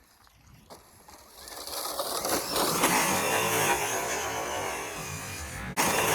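Arrma Infraction BLX 6S RC truck speeding in on a run-up. Its brushless motor whines and its tyres grind over dirt and gravel, growing loud about two seconds in and then easing off. A sudden loud burst of noise comes near the end.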